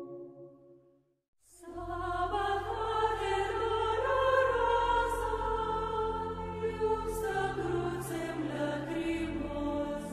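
Soft ambient music fades out into a brief silence, then choral music begins about a second and a half in: a choir singing slow sustained lines over a low held bass.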